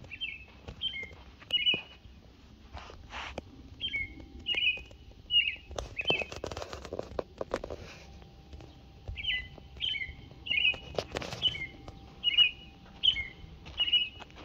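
A small bird chirping in runs of short, repeated high notes, each dropping slightly in pitch, a little over one a second. A few louder scuffing noises come in the middle.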